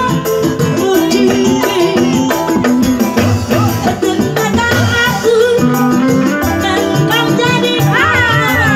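Loud live band music over a PA system: a steady beat with rattling percussion and a melodic line, and a woman singing into a microphone over it.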